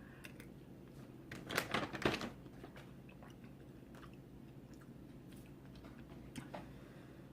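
Close-up eating sounds of a person eating chunky soup: wet chewing and mouth clicks, loudest in a short cluster about one and a half to two seconds in, then a few scattered small clicks.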